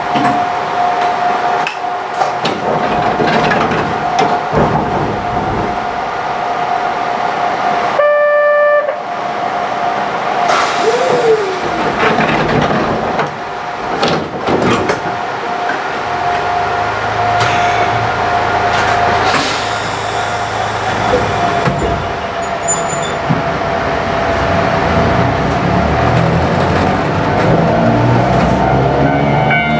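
Level-crossing alarm ringing steadily while the train stands, with a short horn-like tone about eight seconds in. From about halfway through, the low whine of the train's nose-suspended (hanging-drive) traction motors builds and climbs as it starts to move.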